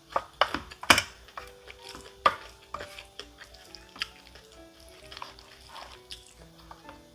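A spoon scraping and clinking in a metal yangpun bowl of bibimbap, mixed with eating sounds, with sharp clicks about a second and two seconds in. Light background music with a steady beat plays underneath.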